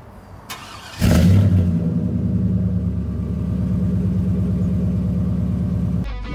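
Chevrolet Silverado pickup engine starting, heard at the tailpipe: it catches about a second in with a brief rev, then settles into a steady, pulsing idle that stops abruptly near the end.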